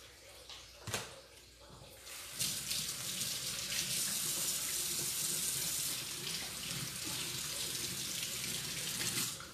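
Sink tap turned on about two seconds in and running steadily while hands are washed with soap and water, then shut off abruptly near the end. A single sharp click comes about a second in.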